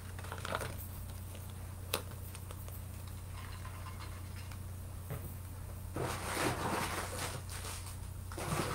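Hands handling jewelry: a single sharp click about two seconds in, then rustling and light clicking from about six seconds in, over a steady low hum.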